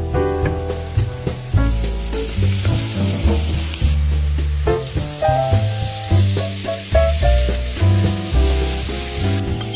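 Food frying and sizzling in a pan, the sizzle starting about two seconds in and stopping shortly before the end, over background music.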